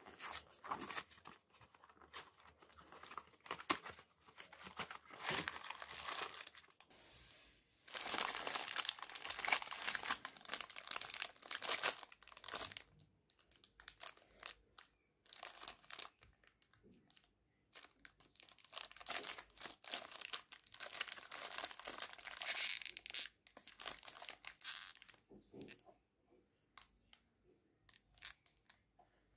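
A cardboard biscuit carton opened by hand and the metallised plastic biscuit packets inside taken out and handled, crinkling and rustling in fits and starts with short pauses between.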